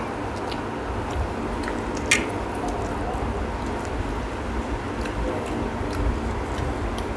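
Eating by hand: chewing, with fingers squishing roti into egg tadka on the plates. A sharp click about two seconds in.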